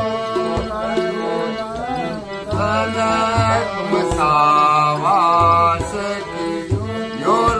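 A man singing Ramlila verses in a slow, ornamented melody, accompanied by a harmonium holding steady chords.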